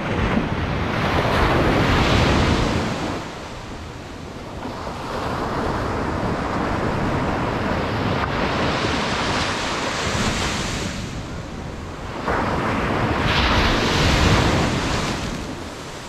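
Ocean surf breaking and washing up a sandy beach. It comes in three surges as successive waves break; the first and last are the loudest.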